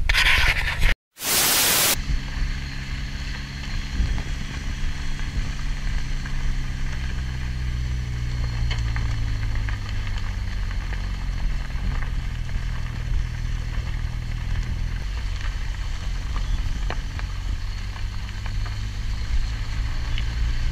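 A car driving on a gravel dirt road: a steady engine hum under tyre and wind hiss, with a few faint clicks, the engine note easing lower about halfway through. About a second in the sound drops out briefly, then a short burst of loud hiss follows.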